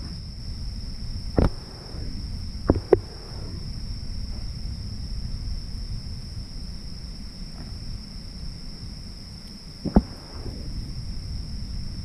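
Steady high-pitched trilling of night insects, with a few short sharp knocks of a kitchen knife and plastic dishes on a plastic board: one about a second and a half in, two close together near three seconds, and one near the end.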